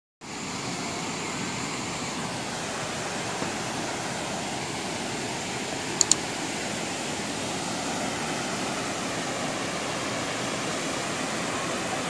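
Steady rushing of a waterfall and river rapids, an even wash of water noise. About six seconds in, two quick sharp clicks: a subscribe-button mouse-click sound effect.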